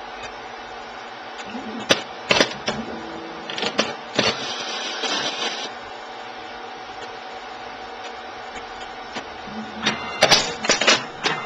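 Automated liquid-handling workcell with a KBiosystems Scorpion plate stacker and a FluidX 712 pipettor running: a steady machine hum, with clicks and clunks of moving mechanics about two seconds in and again near the end, and a motor whir for about a second and a half in the middle.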